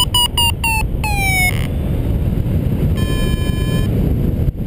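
Paragliding variometer beeping over wind rushing on the microphone in flight. Quick pitched beeps, about five a second, rise slightly and then fall in pitch, closing in a longer tone that glides down about a second in; a steady tone sounds for just under a second about three seconds in. Fast beeping of this kind signals the glider climbing in lift.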